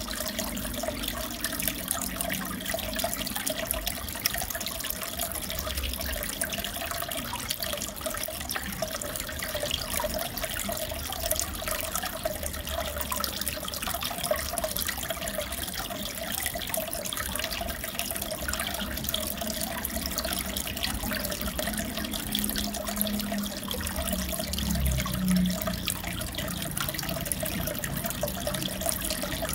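Water in a fish tank trickling and splashing steadily, a continuous crackling patter of running water.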